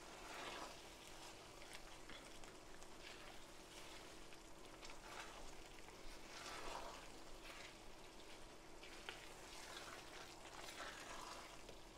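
Faint sizzling and bubbling of a beef bolognese sauce simmering in a stainless steel sauté pan as a cup of added wine cooks off, with soft scrapes of a spatula stirring it every second or two.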